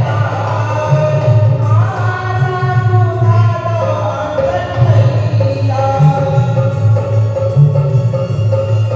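A woman singing a Hindi devotional bhajan to Hanuman, her melody gliding and held over instrumental accompaniment with a steady low accompaniment underneath.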